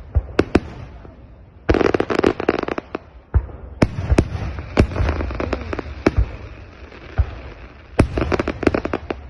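Fireworks display going off: a string of sharp bangs from bursting shells. There are dense bursts of crackling about two seconds in and again near the end.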